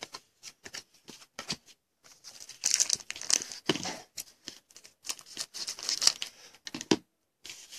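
Foil wrapper of a 2014 Panini Contenders football card pack crinkling and tearing as it is handled and ripped open, in repeated crackly bursts after a few light clicks at the start.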